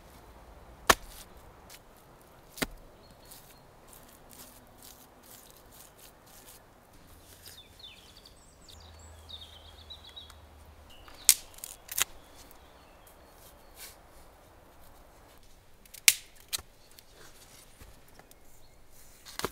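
A few sharp, short clicks and snaps, about five in all, from hands working damp clay and thin wooden sticks, over a faint outdoor background. A bird chirps briefly in the middle.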